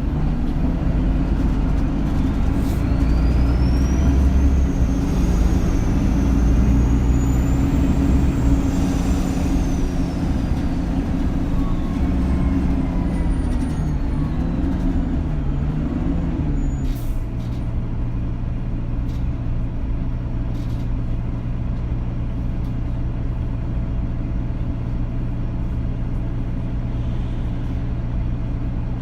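Bus engine running with road rumble, heard from inside the cabin. A high whine rises over the first few seconds and slowly falls away, and about halfway through the engine note wavers, then settles into a lower, steady hum.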